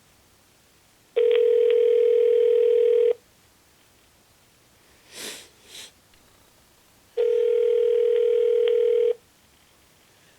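Telephone ringback tone from a speakerphone: two rings, each about two seconds long and about four seconds apart, the sign of a call ringing unanswered at the other end. Between the rings come two short, fainter noises.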